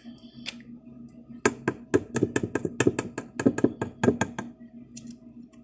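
A quick run of light, sharp taps, about six or seven a second for some three seconds: a small plastic glitter container being tapped to shake glitter out onto the slime.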